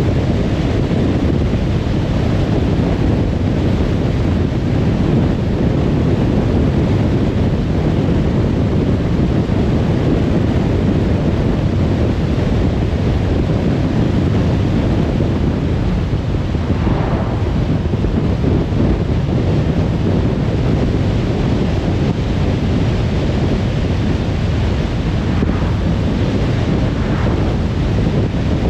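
Steady road and wind noise of a car cruising on a motorway: a dense, even rush of tyre and wind noise, heaviest in the low end. Brief, faint swells come about two-thirds of the way through and again near the end.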